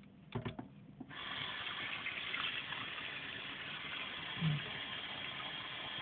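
A few quick clicks, then a kitchen tap comes on sharply about a second in and water runs steadily into an electric kettle. A short low thud comes about four and a half seconds in.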